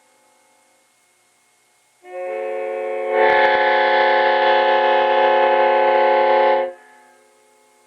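1971 Leslie S5T five-chime air horn, a Norfolk & Western modified horn with its dowel pins drilled out to the maximum size, blown on compressed air. About two seconds in it starts sounding softer, then about a second later it sounds its chord at full blast for about three and a half seconds and cuts off. It is loud.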